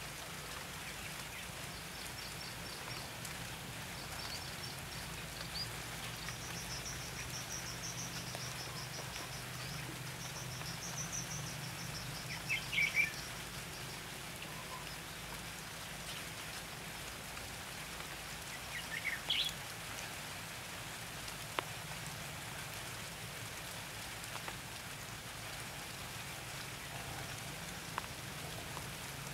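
Steady rain hiss with red-whiskered bulbuls calling: high thin twittering through the first third, then two louder short chattering phrases about 13 and 19 seconds in.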